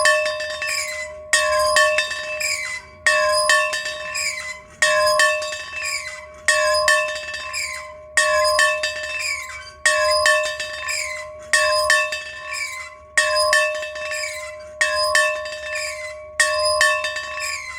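A bell rung in a steady rhythm, one stroke about every one and three-quarter seconds, about ten strokes, each ringing out clearly and fading before the next.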